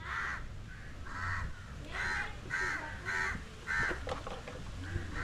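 A crow cawing repeatedly: a run of short, harsh caws, about two a second.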